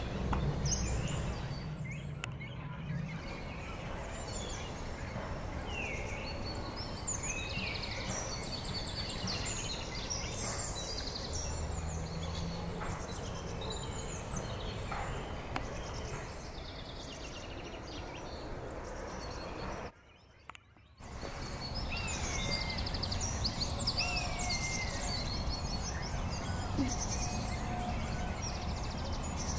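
Young cormorants in a nesting colony begging with a continuous chatter of high, squeaky calls. The sound breaks off for about a second two-thirds of the way through, then the calling goes on.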